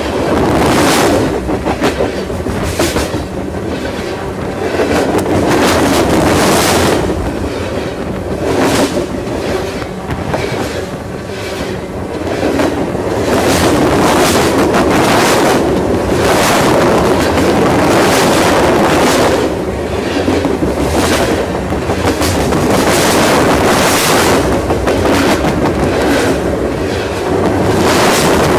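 Union Pacific freight cars rolling directly over the trackbed: steel wheels on the rails rumbling and clattering, with repeated sharp clacks about once a second or two as the wheels pass, and the rumble swelling and easing as the cars go by.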